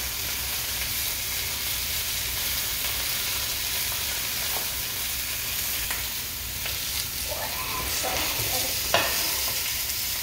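Sausages sizzling steadily in a hot frying pan, with a few light clicks against the pan.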